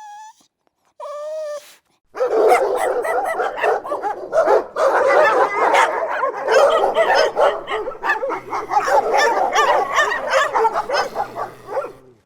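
Dog whining briefly twice, then from about two seconds in a dense chorus of overlapping dog barks, yips and whimpers, as from several dogs at once.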